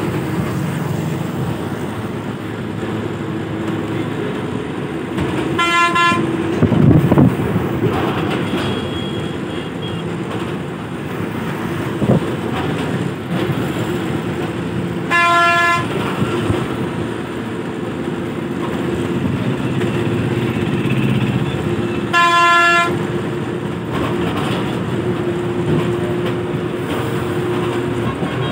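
Steady road and engine noise of a moving bus, with a vehicle horn sounding three short blasts several seconds apart.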